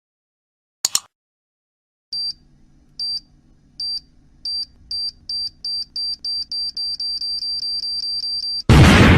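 Bomb-timer sound effect: a high electronic beep repeating faster and faster until the beeps run together, then a sudden loud explosion near the end that dies away slowly. A short double click comes about a second in.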